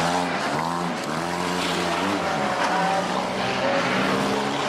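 Several banger cars' engines revving at once in overlapping tones, each rising and falling in pitch as the drivers accelerate and back off.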